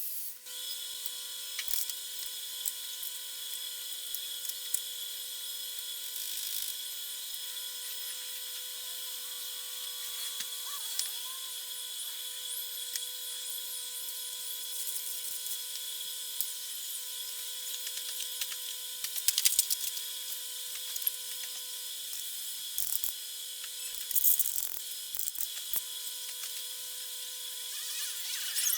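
A power tool running steadily with a high whine and hiss, with two louder spells in the second half.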